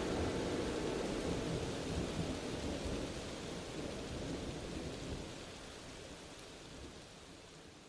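Rain with a low rumble of thunder, fading out steadily to near silence by the end.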